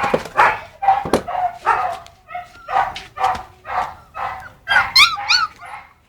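Puppies barking and yipping in quick succession, about two short calls a second, with a few high, arching yelps about five seconds in.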